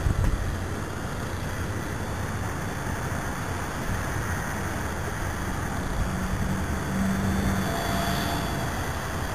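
High wind rushing over the microphone: a steady, noisy roar, with a thump right at the start. A faint, brief whine sounds near the end.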